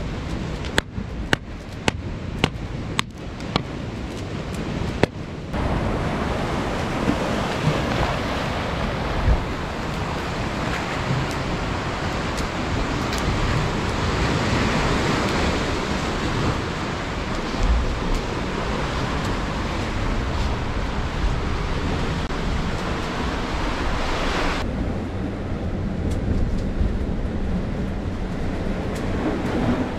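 Waves washing on a shore with wind buffeting the microphone, a steady rushing noise. A handful of sharp knocks come in the first five seconds.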